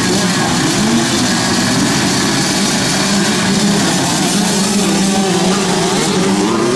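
Several small youth motocross bikes (50 to 85cc two-strokes) racing on a dirt track, their engines revving up and falling back over one another.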